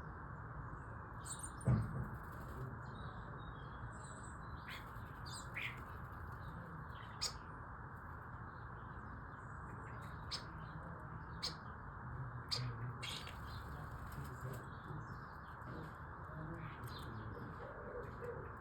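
Starlings chattering at a feeder: scattered short chirps, whistles and clicks over a steady background hiss, with a sharp thump about two seconds in.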